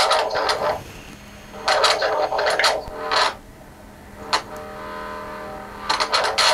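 Homemade electromagnetic-field amplifier giving out irregular bursts of crackling, distorted electronic noise, four bursts with a longer one in the middle. The ghost hunter takes it for a voice speaking through the device.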